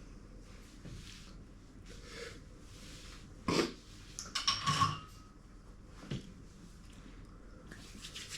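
Tableware being handled: a sharp knock about three and a half seconds in, then a short run of clinks and knocks around five seconds, and one more light knock a second later.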